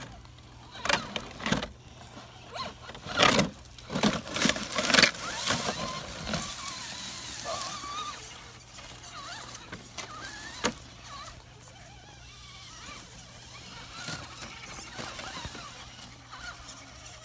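Scale RC rock crawler clattering and scraping over granite boulders: a run of loud knocks and scrapes over the first six seconds, then quieter scuffing with faint squeaks.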